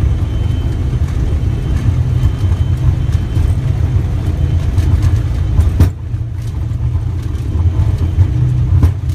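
Steady low rumble of an aircraft's engines and airflow heard inside the cockpit, with a sharp click about six seconds in.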